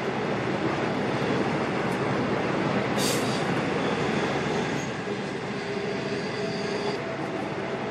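Indian Pacific passenger train running along the track: a steady rumble and rattle of the carriages with faint high-pitched wheel squeal. There is a brief hiss about three seconds in.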